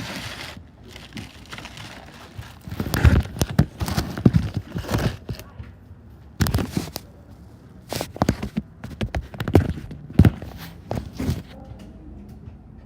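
Slime being squished and poked by hand, making irregular wet clicks and pops in short clusters, loudest a few seconds in.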